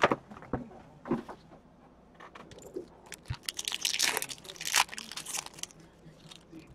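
Wrapper of a hockey trading card pack being torn open and crinkled, with scattered clicks and handling rustle; the crinkling is busiest and loudest between about three and a half and five seconds in.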